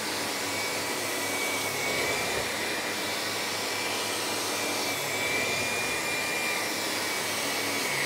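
Miele Complete C3 Cat & Dog cylinder vacuum cleaner running on full suction power, its floorhead pushed over carpet: a steady rush of air with a thin high whine.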